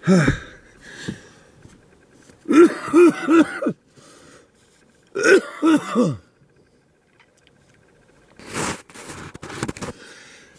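A man coughing in short fits: three coughs in quick succession about two and a half seconds in, and two or three more around five seconds. Near the end there is a short rush of noise.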